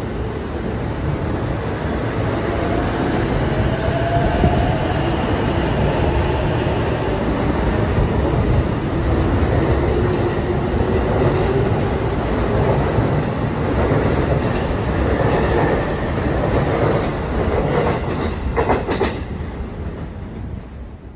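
JR East E233 series electric commuter train running along the platform: steady wheel-on-rail rumble with a faint gliding whine from its traction motors, a few wheel clacks over rail joints near the end, then the sound fades as the train moves away.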